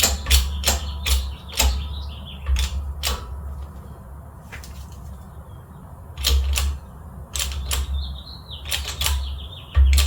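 Irregular sharp metal clicks and knocks, about one or two a second, with a faint wavering squeak now and then, from work on pressing the worn lower control-arm bushings out of the arm.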